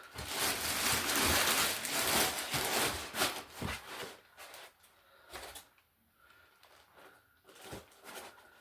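Cardboard and foam packaging rustling and scraping as it is handled, dense for about the first four seconds, then dying down to occasional short knocks and rustles.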